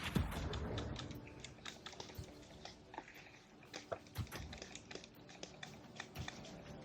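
Irregular rustling with many small sharp clicks close to the microphone, densest and loudest in the first second.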